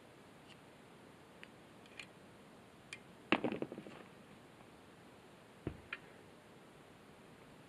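Clicks and knocks of an electric ATV winch being gripped and turned over by hand during disassembly: a few light ticks, a quick run of rattling knocks a little past three seconds in, and two knocks near six seconds.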